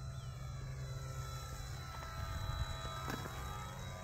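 Electric RC model Hawker Hurricane making a close pass, its Suppo 2217/9 920 kv outrunner motor and propeller giving a steady whine that slowly shifts in pitch as it goes by. A brief click about three seconds in.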